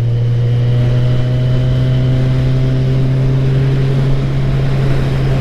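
Motorcycle engine running steadily while riding, its note sinking slightly as the revs ease off, over a hiss of wind noise.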